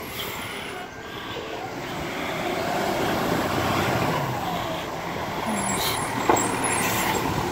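Hoboken ladder fire truck driving past close by, its diesel engine getting louder as it approaches, with a short sharp burst about six seconds in.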